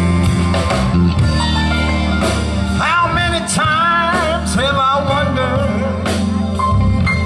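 Live soul band (electric guitar, bass, drums, keyboards and horns) playing a slow ballad, with no sung words. About three seconds in, a lead melody with a wide vibrato comes over the band for a couple of seconds.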